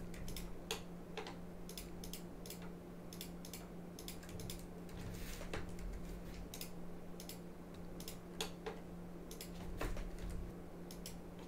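Irregular clicks of a computer mouse and keyboard, about two a second, over a faint steady hum.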